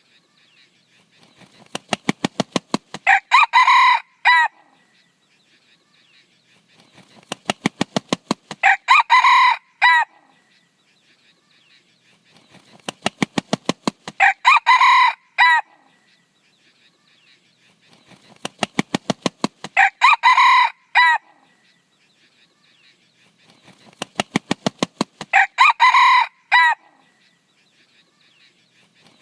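Junglefowl rooster crowing five times, about every six seconds. Each short crow is preceded by a quickening run of sharp wing claps.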